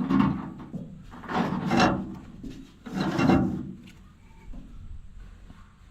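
Three rubbing scrapes about a second and a half apart, from baler twine being pulled and worked through the hay baler's twine guides, then fainter small handling sounds.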